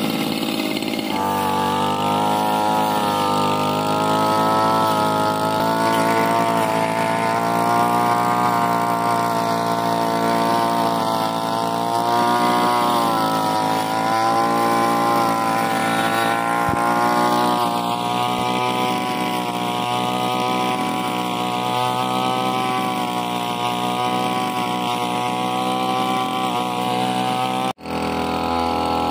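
Backpack brush cutter's small petrol engine running at high speed with a circular blade fitted, rising to full speed about a second in. Its pitch sags slightly now and then as the blade takes load cutting through grass and saplings, and the sound drops out for an instant near the end.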